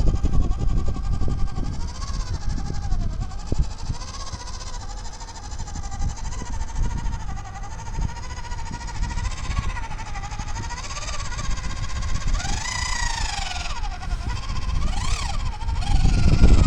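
Electric drive motor and gearbox of a WPL B24 RC GAZ-66 truck whining, the pitch rising and falling with the throttle, with a sharper rev up and down near the end, over a low rumble.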